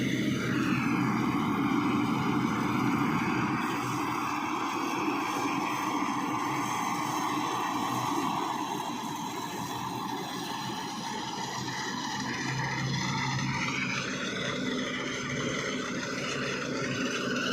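Farm machinery running steadily, its engine note carrying a layered, high whine that holds throughout and dips slightly in loudness partway through.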